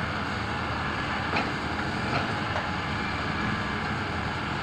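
Hitachi 310 hydraulic excavator's diesel engine running steadily under load as it loads padas rock into a dump truck, with a couple of short knocks as rock drops into the truck bed.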